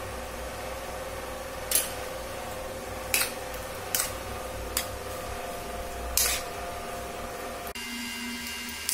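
A steel spoon clicking and scraping against a plastic bowl while raw prawns are mixed with turmeric and salt, about five short scrapes spread over several seconds. A steady low hum sits underneath and changes near the end.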